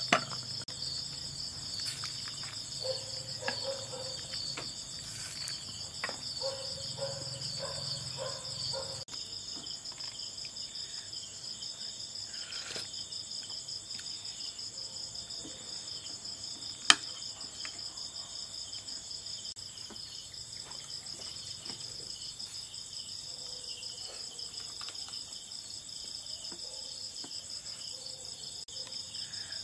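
Crickets chirping steadily in a high-pitched, pulsing trill, with a few light clicks and one sharp click about halfway through.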